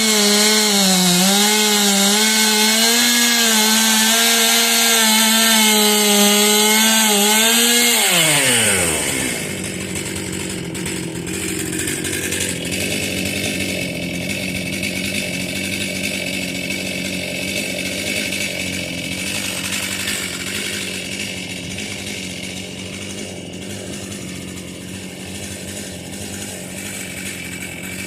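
Stihl chainsaw at full throttle, its high engine pitch wavering slightly as it works, then the throttle is released about eight seconds in and the engine drops to a steady idle.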